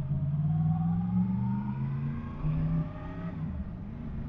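Yamaha MT-10 SP's crossplane inline-four engine running under way, with a whine that rises steadily for about three seconds and then drops.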